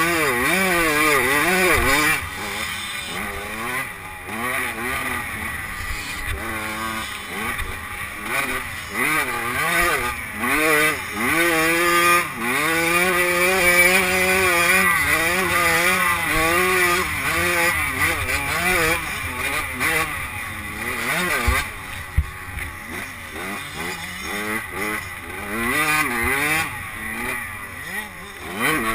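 85cc two-stroke motocross bike engine revving up and dropping back again and again as the rider races and shifts through the gears, heard from a helmet-mounted camera with rushing wind noise underneath.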